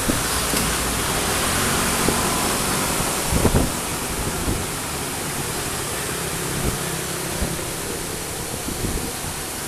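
Diesel engine of a Komatsu long-reach excavator running as the boom and bucket work the sand pile, under a steady hiss, with a short cluster of knocks about three and a half seconds in.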